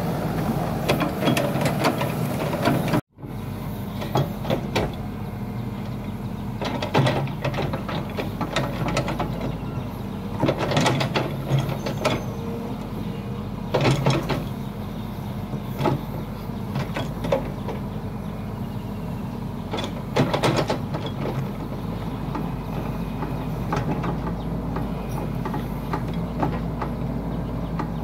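Hitachi hydraulic excavator's diesel engine running steadily under digging load, with repeated clanks and knocks from the steel bucket and arm as it scoops and dumps earth. The sound cuts out for a moment about three seconds in.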